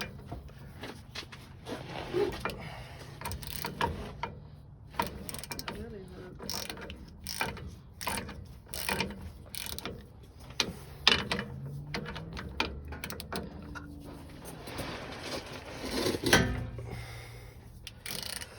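Hand socket ratchet clicking in irregular runs of strokes as bolts on a truck's rear differential and driveline are worked loose, with short pauses between runs.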